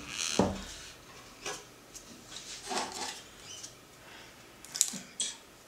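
A 12 V sealed lead-acid battery pressed against a second battery with a dull thump about half a second in, then scattered light rubbing and small plastic clicks as the batteries and their red terminal covers are handled.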